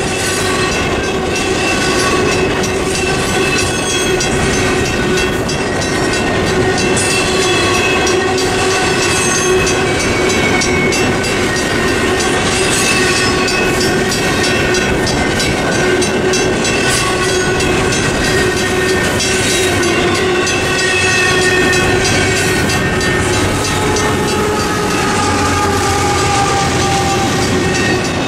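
Double-stack intermodal container well cars rolling steadily through a road crossing, a continuous loud rumble and clatter of steel wheels on the rails, with the crossing signal's mechanical bell ringing along with it.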